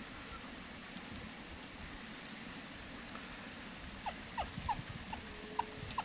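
A dog whining: a run of short, high whimpers, about three a second, starting about halfway through and getting louder toward the end.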